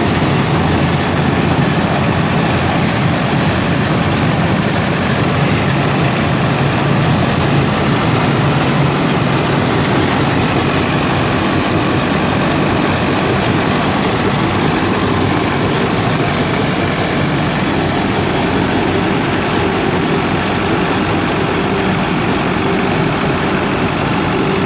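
Tractor-mounted combine harvester, a Sonalika WorldTrac 60 2WD tractor's diesel engine driving a Vikas combine attachment, running steadily under load as it cuts and threshes a standing grain crop; a loud, even mix of engine drone and clattering harvester machinery.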